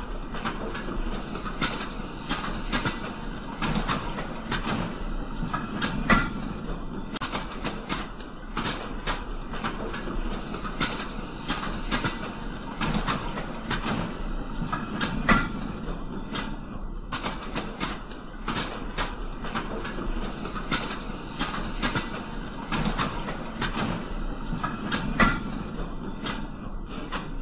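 Model railway banana vans rolling along the track: a steady low rumble under a rapid, uneven run of small clicks from the wheels on the rails, with three louder clicks spaced about nine seconds apart.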